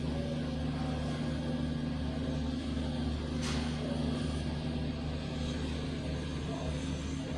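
Steady low mechanical drone, with one short click about three and a half seconds in.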